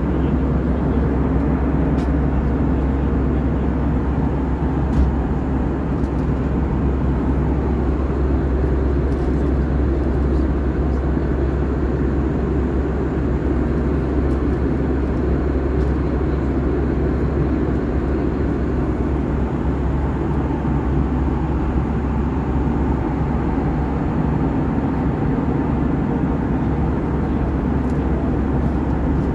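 Steady roar of airflow and jet engines heard inside an Airbus A320's passenger cabin in flight, with a small knock about five seconds in.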